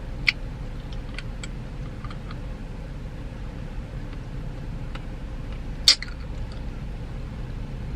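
Steady low hum inside a car's cabin with the engine idling, broken by a few sharp clicks, the loudest about six seconds in.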